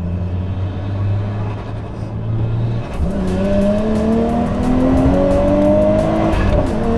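Nissan Skyline R33 GTS-t's turbocharged RB25DET straight-six under hard acceleration, with a new exhaust manifold, studs and gasket fitted. It runs steadily for about three seconds, then the revs climb steadily to near the end.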